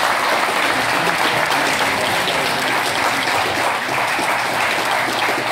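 A roomful of people clapping in steady, continuous applause.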